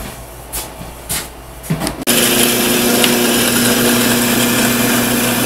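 A few light knocks, then about two seconds in a drill press motor switches on abruptly and runs steadily with a constant hum, ready to drill a starter hole for a scroll-saw blade.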